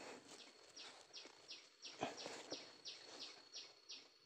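A small bird calling in a fast, even series of short high notes, each falling slightly in pitch, about three a second. A faint steady high tone runs beneath it, and there is a dull thump about two seconds in.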